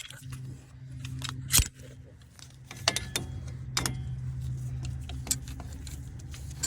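Metal tools clinking and knocking against a brake caliper as a piston compressor tool is set in place against the old brake pad: a few sharp separate clicks, the loudest about a second and a half in. A steady low hum runs underneath.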